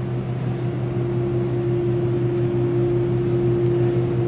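Steady electrical hum of a running appliance motor, with a steady higher tone joining about half a second in.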